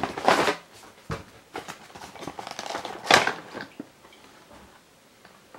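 Rustling and crinkling of a trading-card collection box's cardboard and plastic packaging being opened and handled. There are two louder crinkles, one at the start and one about three seconds in, with light clicks and taps between them.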